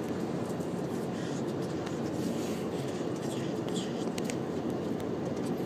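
Steady cabin drone inside an Airbus A330 taxiing with its engines at low power, with brief scratchy rustles over it.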